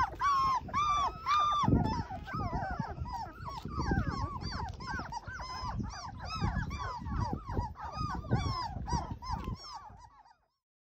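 A litter of three-week-old yellow Labrador puppies whimpering and crying: many overlapping high-pitched, rising-and-falling cries, the young pups unsettled at being outdoors. The crying cuts off suddenly near the end.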